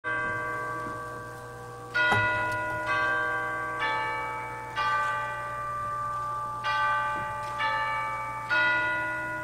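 Church bells chiming a slow tune, about one note a second with a pause midway, eight strikes in all. Each note rings on and fades under the next.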